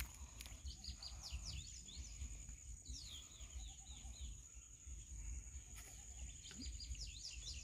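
Small birds chirping: quick downward-sweeping chirps repeated in runs, over a steady high-pitched whine and a low rumble.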